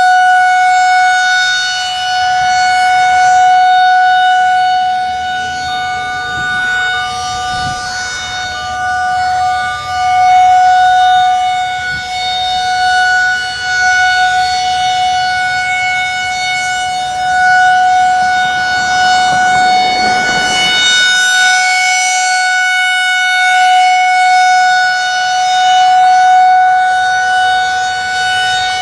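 Federal Signal 2001 rotating electromechanical tornado siren sounding its steady alert tone, one unbroken pitch that swells and fades slowly as the siren turns. Fainter distant sirens waver in pitch underneath it.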